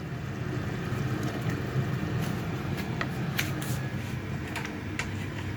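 Steady low mechanical hum of a kitchen appliance, with a few light clicks from about two seconds in.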